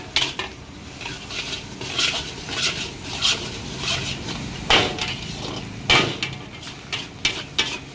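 A flat metal spatula scraping and tossing fried rice around a large wok in quick repeated strokes, with two louder clangs of the spatula against the wok a little past the middle.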